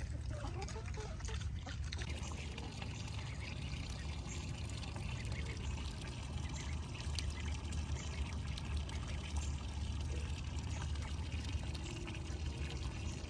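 Steady running water, pouring and splashing.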